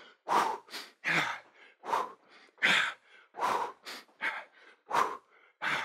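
A person breathing hard from exertion close to the microphone: short, sharp exhales about ten times, in a quick steady rhythm.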